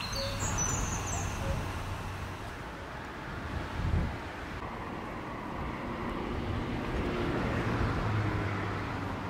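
Outdoor ambience: a low rumble that swells and fades, a few high chirps at the start, and a single thump about four seconds in.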